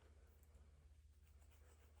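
Near silence: room tone with a steady low hum and faint pen-on-paper writing sounds.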